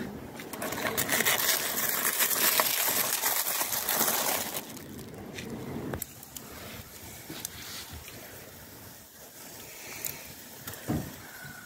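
Plastic cling film crinkling and rustling as it is handled on a bowl of marinated meat for about four seconds. After that only faint sounds remain, with a few light clicks.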